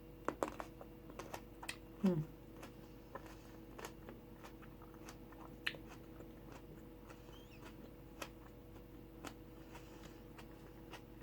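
Close-up chewing of small crunchy tomatoes: irregular crisp crunches and mouth clicks spread throughout, loudest in the first couple of seconds.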